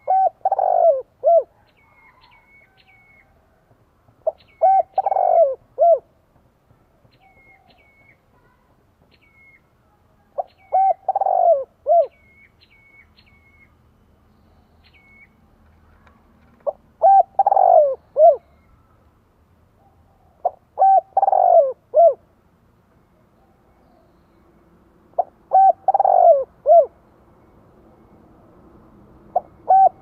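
Spotted dove cooing its calling song: a short note followed by three deep coos, repeated about every four to six seconds, six times and a seventh starting at the end. A small bird chirps faintly in the background during the first half.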